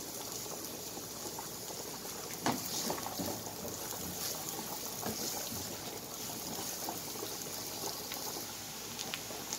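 Chopped onion and garlic frying in oil in a non-stick pan, with a pot of pasta water boiling alongside: a steady soft sizzle and bubbling. A few light scrapes and taps of the silicone spatula against the pan break in.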